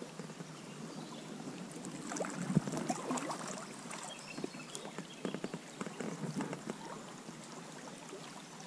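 Water splashing and lapping around a small boat drifting on a river, with scattered light knocks and clicks.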